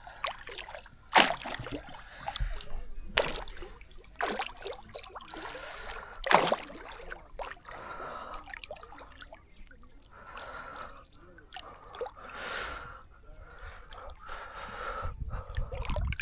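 Lake water splashing and sloshing in irregular strokes, as a person wades, with breathy gasps between them.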